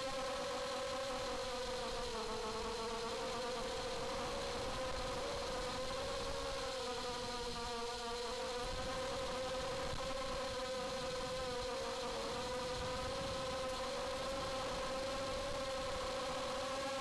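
ZMR250 racing quadcopter's four 2204 2300kv brushless motors and propellers buzzing in flight, a steady high-pitched whine heard from the camera on the frame. The pitch dips and recovers slightly a few times as the throttle changes.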